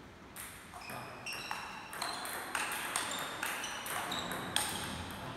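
Table tennis rally: the ball clicking sharply off the players' bats and bouncing on the table, about two to three hits a second in an even back-and-forth rhythm, each hit with a short high ring.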